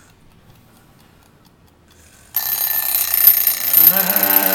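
An alarm clock goes off suddenly about two seconds in, ringing loudly and steadily. Near the end a voice briefly rises over the ringing.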